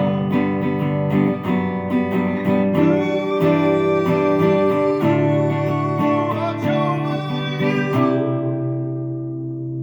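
Guitar strumming chords in an instrumental passage of a song; about eight seconds in, the strumming stops and the last chord is left ringing.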